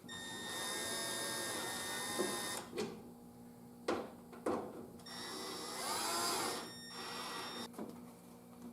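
Power drill running in two bursts, about two and a half seconds then about two seconds, its motor whine rising and falling in pitch, with a couple of short knocks between the runs.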